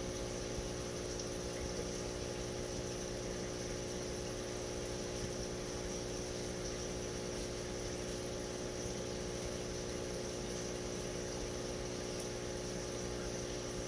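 Aquarium pump running steadily: an even hum with a constant wash of water noise.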